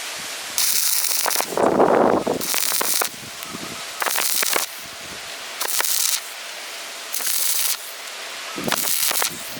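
Electric arc welding in short runs: about six bursts of crackling, sizzling hiss, each about half a second long, at roughly one-and-a-half-second intervals, typical of stitch or tack welding with stick electrodes. A louder, lower rumble comes about two seconds in.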